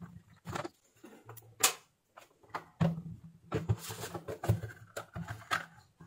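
Handling noise from a plastic power-adapter case and its cord: irregular clicks and knocks of plastic parts as the case is taken apart, a few of them sharper.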